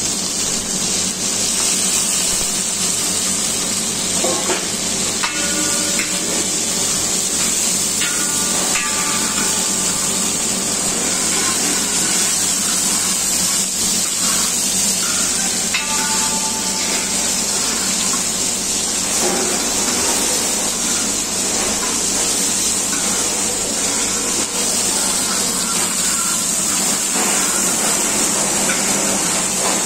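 Okra, onions and chillies frying in hot oil in a large metal pan: a steady sizzle while a metal spatula stirs them.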